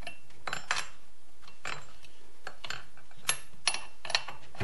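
Scattered metallic clicks and taps of a hand tool working at a chainsaw's clutch, about seven at uneven intervals.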